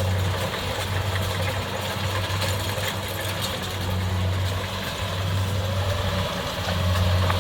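Kubota DC70 combine harvester working, its diesel engine and machinery running as a steady mechanical din, with a low hum that swells and fades every second or two.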